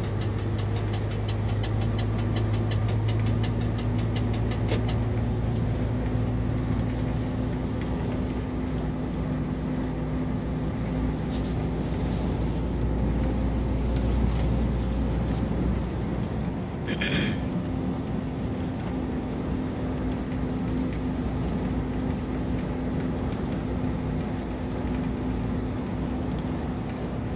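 A vehicle's engine drone and road noise inside the cab while driving at highway speed, steady throughout. Fast even ticking for the first few seconds, and a short high-pitched sound about seventeen seconds in.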